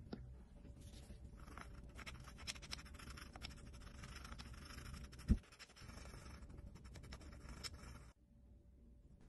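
A wooden stick scrubbing white paste over a watch movement plate in a glass dish: faint scratchy rubbing with many small clicks, and one dull knock about five seconds in. The sound cuts off abruptly near the end.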